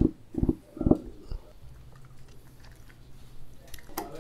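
Fingertips drumming on a wooden tabletop, about two or three taps a second, stopping about a second and a half in. Near the end a few sharp clicks start as a plastic straw is worked in a plastic cup lid.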